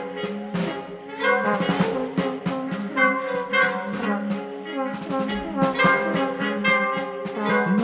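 Instrumental free-jazz passage: saxophone and trumpets made of plastic pipes holding long, overlapping notes over drums, with drum and cymbal strokes several times a second.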